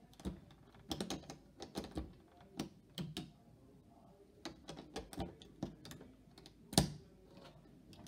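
Snap Circuits plastic parts being handled, pressed together and set down on the clear plastic base grid: irregular sharp clicks and taps, the loudest one near the end.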